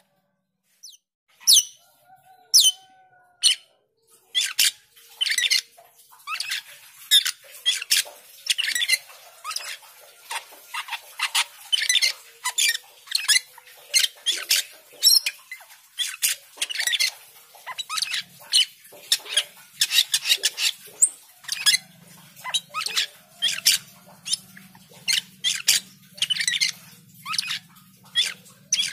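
Asian glossy starling (cucak keling) singing steadily: a rapid string of short, sharp, high-pitched chips and squeaky whistles, several a second, beginning about a second and a half in.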